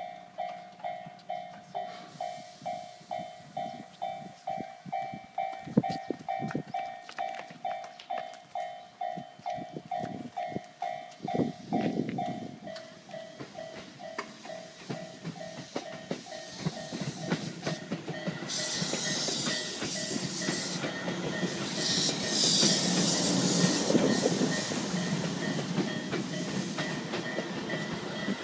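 Japanese level-crossing warning bell ringing in a rapid two-tone pattern, about two strikes a second, that stops about twelve seconds in. A train's running noise then builds, with bursts of high hiss a little after eighteen and twenty-two seconds in and a thin steady squeal.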